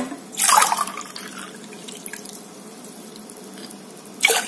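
Water being poured from a cup into a pan: a short splashing pour about half a second in, and another brief splash just before the end.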